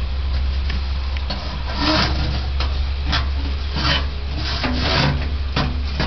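Water sprayed by hand onto the cloth-wrapped smoke pipe of a charcoal kiln, coming as a string of short hissing spurts about a second apart from about two seconds in. The cold water cools the pipe so that the smoke condenses into wood vinegar.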